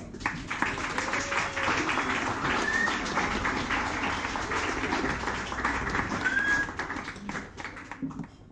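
Audience applauding, a dense clatter of claps that dies away over the last second or so.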